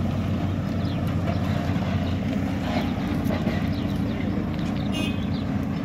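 Hidromek backhoe loader's diesel engine running steadily as the backhoe arm lifts and swings a bucket of soil.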